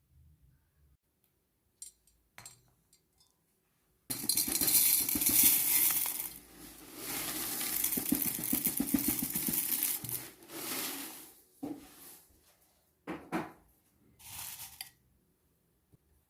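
Clattering and clinking of dishes and utensils: a dense rattling run lasting several seconds, then a few shorter bursts.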